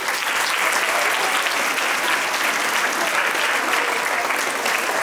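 Audience of schoolchildren applauding: dense, even clapping at a steady level.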